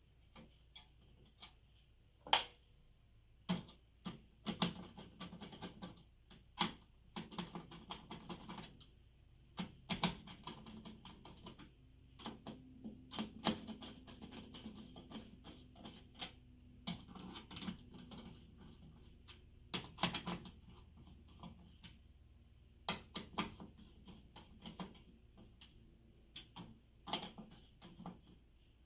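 Irregular clicks, taps and knocks of plastic and metal parts being handled and fitted inside a server tower chassis.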